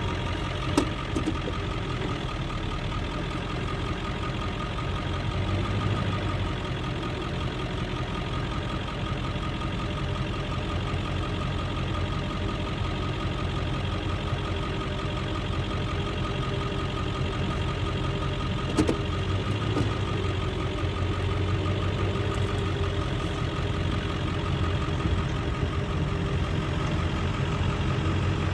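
Engine of harvest machinery running steadily, with a sharp click about a second in and another a little past the middle.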